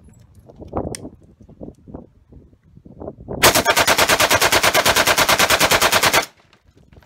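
AK-pattern rifle firing one long full-auto burst, about ten shots a second for roughly three seconds, starting about three and a half seconds in and cutting off sharply. Before the burst there are only faint clicks and handling knocks.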